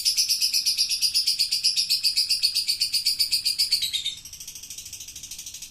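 Male songbird giving a sustained, very fast rattling trill, high-pitched, that drops to a quieter level about four seconds in.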